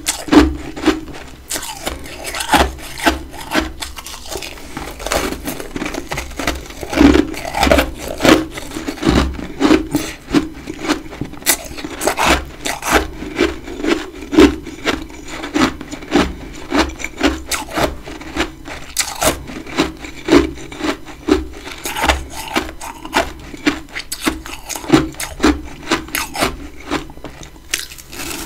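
Close-up chewing of big chunks of freezer frost: a steady run of grinding crunches, about one to two a second.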